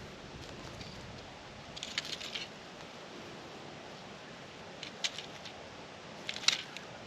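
Dry hay crackling and rustling in three short bursts of sharp, crisp crackles, about two, five and six and a half seconds in.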